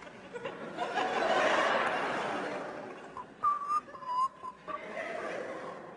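Audience laughter swelling and fading, then a few short whistled notes about three seconds in.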